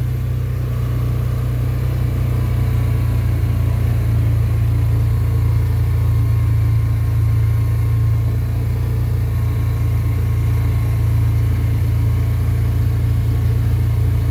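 Polaris Ranger side-by-side's engine idling, a steady deep hum that holds throughout with no revving.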